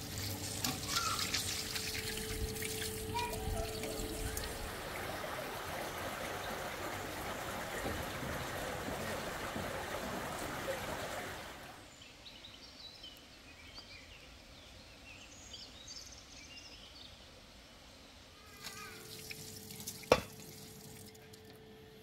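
Water running steadily for about eleven seconds, then stopping, leaving a quieter background. One sharp click about 20 seconds in.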